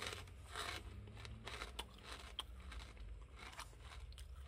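Chewing hard, crunchy Calbee Jagariko potato sticks: a run of faint, irregular crisp crunches.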